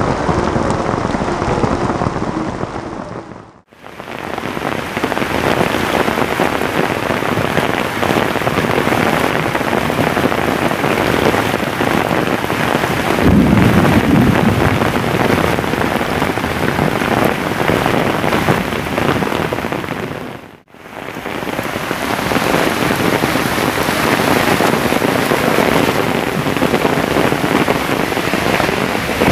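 Heavy downpour: a dense, steady hiss of rain pelting pavement and wet ground, with a stronger low rumble about halfway through. The sound fades out and back in briefly twice.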